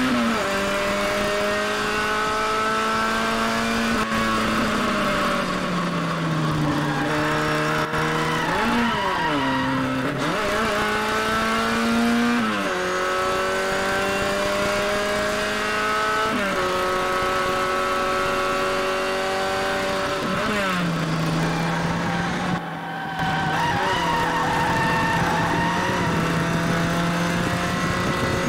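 A racing Mini's BMC A-series four-cylinder engine heard from inside the car at full throttle. Its pitch climbs steadily and then drops sharply at each gear change, several times, with quick falls and rises around ten seconds in as it brakes and downshifts. The sound briefly drops out about twenty-three seconds in.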